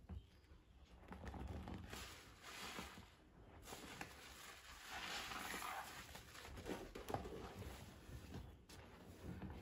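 Sponges squeezed and kneaded by hand in a basin of thick soapy foam: soft wet squelching and bubbly fizz that swells twice in the middle.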